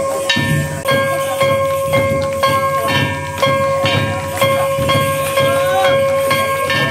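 Japanese shrine-festival lion-dance music: taiko drum strokes about two a second under a steady high held note.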